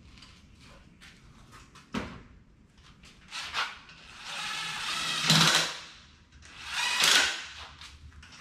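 Cordless drill running in two bursts, each swelling up and dying away, about four and seven seconds in, after a single sharp click about two seconds in.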